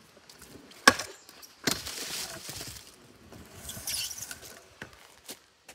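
Stunt kick scooter clattering on asphalt: one sharp clack about a second in, the loudest sound, then about a second of wheels rolling and scraping, with a few lighter knocks near the end.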